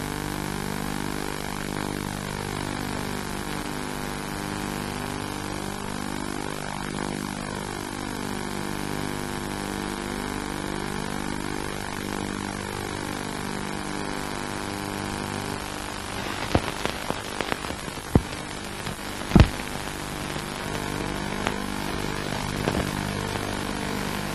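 Steady hiss with a low hum underneath, the playback noise of an old videotape over colour bars. About two-thirds of the way in, a few sharp clicks and pops break in, the loudest a little later.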